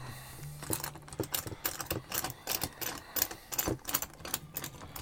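Steel G-clamp being unscrewed by hand on a wooden press, its sliding T-bar handle clicking and clinking in an irregular run of sharp metal clicks that starts about half a second in.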